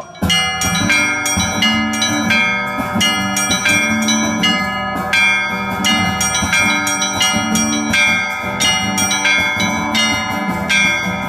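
A set of Russian church bells rung in a rhythmic chime by a bell ringer. Several bells of different pitches are struck in quick, even succession, each note ringing on under the next.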